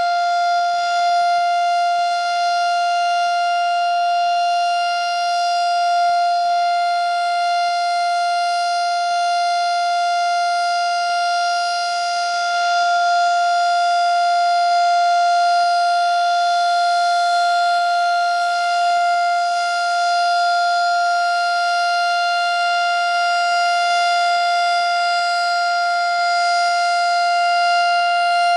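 Darley STH-10 outdoor warning siren sounding a steady tone during a siren test, its pitch holding level on one note with a strong set of overtones.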